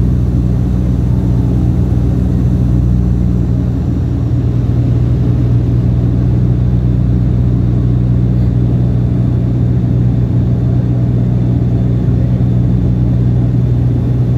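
Turboprop airliner's engine and propeller drone heard from inside the cabin in flight: a loud, steady low hum with a rushing noise over it, unchanging throughout.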